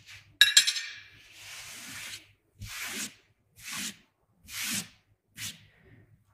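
A hard object knocks down with a sharp ringing clink. Then come five short rubbing swishes, about one a second, as things are handled and wiped.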